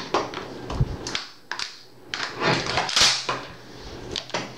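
Steel parts of a Vz. 59 machine gun being handled and fitted together on a wooden table: a scattered series of metallic clicks and knocks, the loudest about three seconds in.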